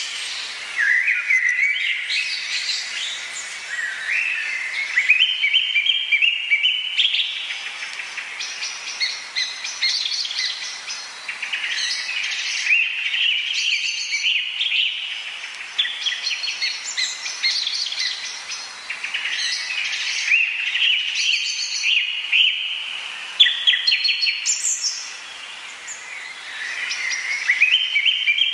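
Amazon rainforest birds singing and calling together, a dense chorus of overlapping chirps and warbled phrases that step up and down in pitch.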